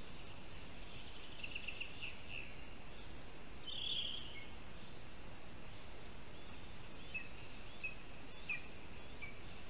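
Bird calls over a steady background hiss of forest ambience: a short trill, a brighter call about four seconds in, and scattered short chirps in the last few seconds.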